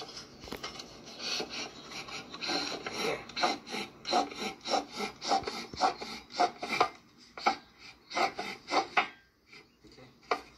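Repeated short scraping strokes of metal on metal, a few each second, thinning to scattered scrapes near the end.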